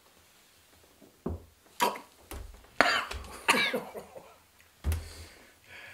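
A person coughing repeatedly after downing a shot of tequila too fast, about half a dozen harsh coughs and rasping breaths starting about a second in.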